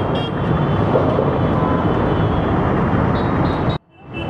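Steady roadside traffic noise with a few faint high tones near the end. It cuts out suddenly for about half a second shortly before the end, then comes back.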